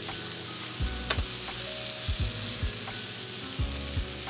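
Sliced onions and poblano peppers sizzling in olive oil on a hot griddle, with a sharp click about a second in.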